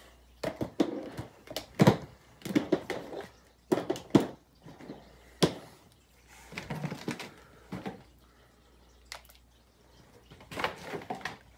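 Packaged makeup products being handled in a cardboard box: an irregular run of knocks, clicks and rustling as items are picked up and set down, easing off for a couple of seconds before picking up again near the end.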